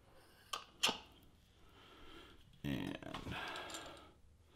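Pump parts being handled and fitted together: two light clicks about half a second apart, then a longer scraping rub as the stainless pump head is pushed onto the pump's plastic motor housing.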